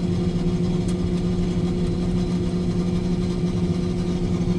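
A vehicle engine running steadily at a constant speed, a low even hum.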